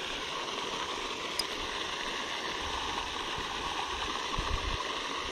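Steady rushing of running water, with a brief low rumble about four and a half seconds in.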